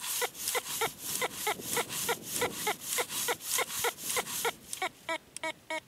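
Teknetics T2 metal detector's VCO audio sounding a short pitched beep on each pass of the coil over a very shallow target, about three beeps a second and quickening near the end. Between the beeps the coil swishes through the grass.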